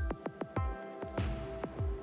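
Electronic background music with a steady beat of short, low drum hits that drop in pitch, over held tones.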